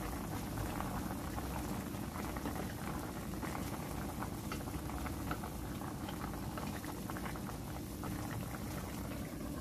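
Adobo sauce with chicken gizzards and livers boiling in a stainless steel pan: a steady bubbling with a dense crackle of small pops.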